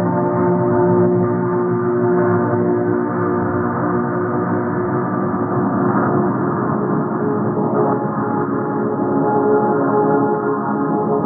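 Ambient drone: a dense, steady wash of many held, gong-like ringing tones that swells slowly without any distinct strikes.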